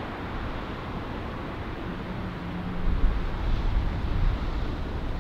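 Outdoor wind buffeting the microphone over a low rumble, gusting harder about three seconds in, with a faint brief hum partway through.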